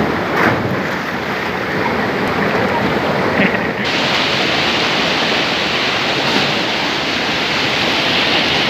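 Waterfall rushing into a rock pool, a steady loud rush of water, with a splash about half a second in as a jumper hits the water. About four seconds in the rush turns brighter and hissier.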